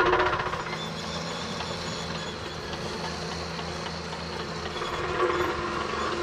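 CAT crawler bulldozer's diesel engine running, with its steel tracks working on crushed stone; the noise swells slightly about five seconds in. A Dynapac roller's engine is briefly louder at the very start and drops away within the first half second.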